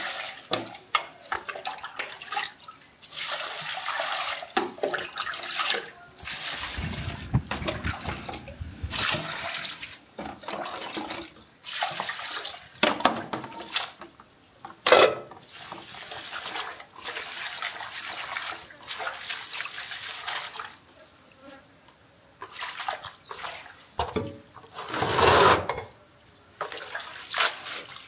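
Water sloshing and pouring in irregular bursts a second or two long, with clicks and knocks between them.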